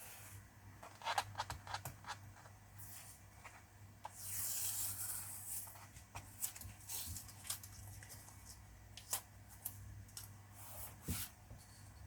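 Masking tape being peeled off the edges of watercolour paper, with faint scattered crackles and one longer rip about four seconds in.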